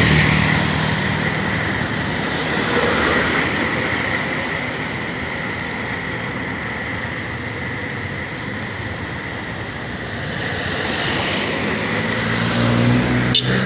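Road traffic passing steadily on a busy road. Engines of vehicles close by are louder near the start and again near the end, with a quieter stretch in between.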